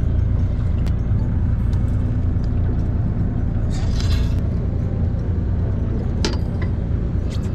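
Steady low rumble of the fishing boat's engine, with a few sharp clicks and a short hiss about four seconds in.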